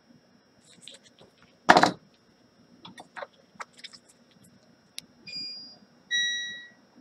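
Light clicks and taps of small tools at a micro-soldering bench, with one short loud rush of noise about two seconds in. Near the end come two short beeps, each held on one steady pitch, the second fading out.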